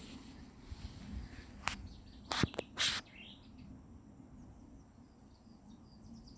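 Small birds chirping in the background, with a few short high calls in the second half. Two or three sharp knocks or rustles stand out about two and a half to three seconds in.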